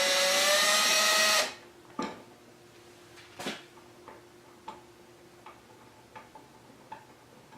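A power drill running steadily on a screw, rising slightly in pitch, then stopping suddenly about a second and a half in. After it come two knocks and a row of faint, evenly spaced ticks.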